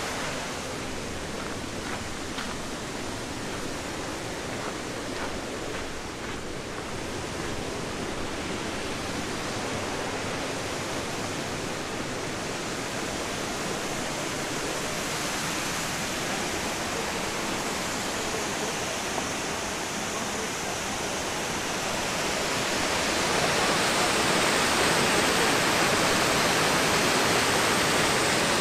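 Steady rushing of the Capilano River's fast-flowing water, growing louder about two-thirds of the way through.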